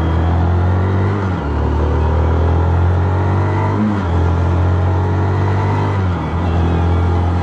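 Zontes X310 motorcycle's single-cylinder engine running under way. The engine note dips briefly and changes pitch three times, about one and a half, four and six seconds in.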